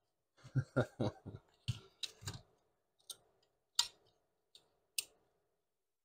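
Small clicks and knocks from hands handling wires and small tools on a rubber work mat: a quick cluster in the first two and a half seconds, then a few single clicks.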